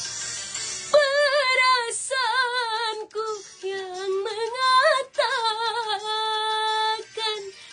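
A woman singing solo in a dangdut style, starting about a second in with a long wordless run full of wavering vibrato and ornaments, and ending on a steadier held note.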